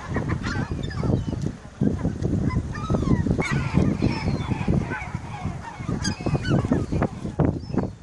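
A flock of gulls squabbling over food, with many short, overlapping harsh calls, busiest about halfway through and again near the end. Heavy, irregular low rumbling lies beneath the calls.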